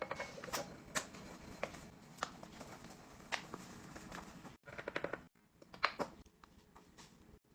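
Scattered light clicks, taps and knocks of containers and packaging being handled and set down during a restock, about one or two a second, with a few abrupt cuts to silence.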